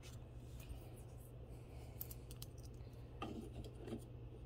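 Faint handling noise from costume jewelry rings being picked up and turned over: a few light clicks and some rubbing, over a low steady hum.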